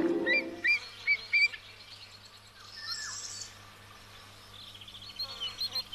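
Birds chirping in short, quickly repeated notes: a run of chirps in the first second and a half, then a quieter stretch, and another faster run of chirps near the end.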